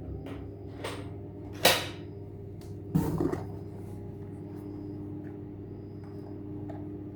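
Light clicks and knocks of hard plastic being handled, the loudest about a second and a half in and another short rattle about three seconds in, over a steady low hum.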